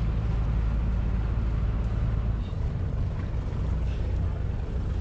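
A tour boat's inboard engine running with a steady low drone while under way.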